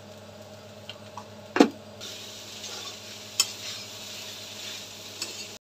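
A steel spatula stirring and scraping poha in a steel kadhai over a low sizzle, with two sharp metal knocks on the pan, about a second and a half and three and a half seconds in.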